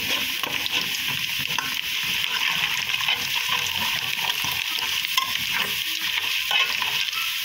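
Chopped onion, garlic and spices frying until browned in a metal pot, sizzling steadily while a spoon stirs and scrapes them across the pot's bottom.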